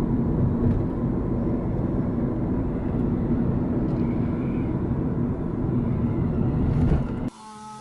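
A moving vehicle's steady running rumble with a faint constant whine, cut off abruptly near the end.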